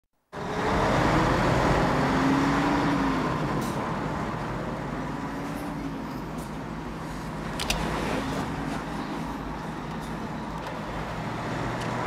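Steady engine and tyre noise heard from inside a moving car on a highway, loudest in the first few seconds and then settling. A short click sounds about seven and a half seconds in.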